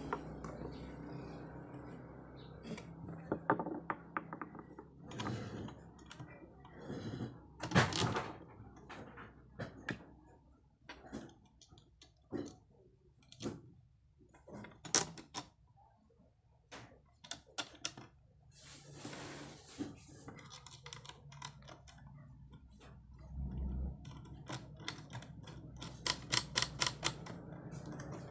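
Irregular clicks, taps and knocks of a solar floodlight's metal mounting bracket and small parts being handled and fitted together by hand, with a quick run of clicks near the end.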